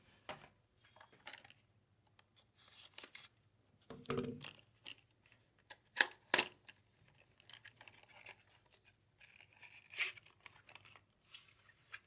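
A small cardboard retail box being opened by hand: quiet tearing and scraping of its flaps, with a few sharp clicks.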